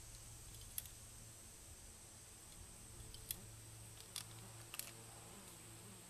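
A few faint, sharp little clicks spaced a second or so apart as the Henry lever-action .22's tube magazine is loaded at the muzzle end, over a faint steady hum.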